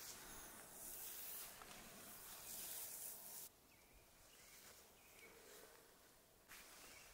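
Near silence: faint outdoor ambience with a high hiss and a few faint bird chirps. The hiss drops off suddenly about three and a half seconds in and comes back near the end.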